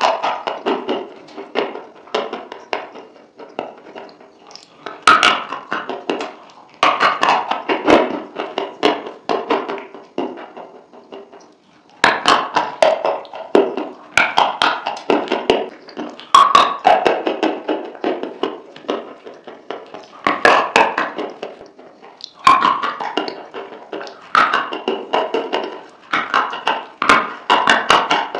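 Close-miked ASMR eating: crunching bites and chewing of a crisp white food loaded with creamy dip, in dense bursts of cracking with short pauses between them.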